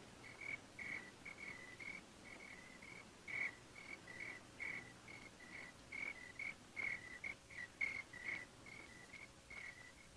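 Crickets chirping at night: a steady run of short, high chirps, several a second, from a 1950s film soundtrack.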